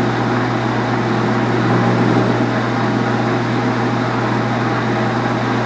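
Small metal lathe running steadily with a constant low hum while an HSS grooving tool is fed into the spinning valve stock, cutting a relief groove.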